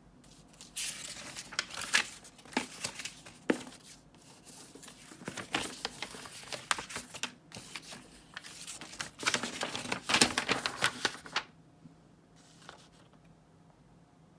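Packaging being handled and opened for unboxing: dense crinkling, rustling and tearing with scattered sharp clicks and knocks, which stops about eleven and a half seconds in, followed by one brief faint rustle.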